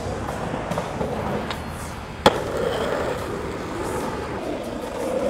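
Skateboard wheels rolling over rough asphalt, with one sharp clack of the board about two seconds in.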